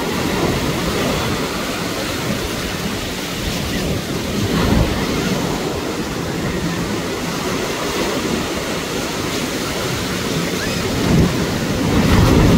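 Sea surf breaking and washing in close by, a steady rushing with low rumble. It swells about five seconds in, and again near the end as a wave breaks right up close, the loudest moment.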